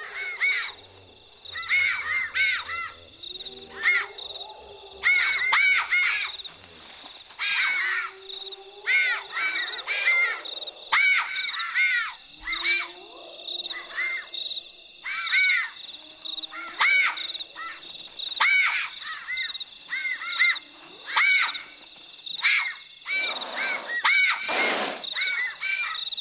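Night-time animal calls: clusters of high chirping calls repeat about every second, with lower whining calls beneath them, over a steady high tone. Two short harsh noisy bursts come near the end.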